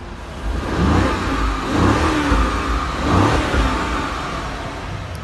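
BMW 750Li ActiveHybrid's twin-turbo V8 revved from idle, about three rising blips in quick succession that then settle back toward idle, heard at the exhaust. The revving is a smoke test for oil burning.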